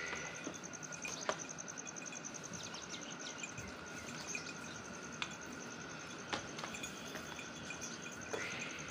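Ambience with an insect's rapid, steady high-pitched pulsing trill, a few faint bird chirps and a handful of sharp clicks.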